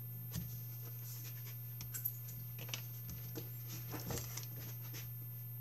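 Hands handling a card panel and tape: a few soft rustles and light taps, the clearest about two seconds in and about four seconds in, over a steady low hum.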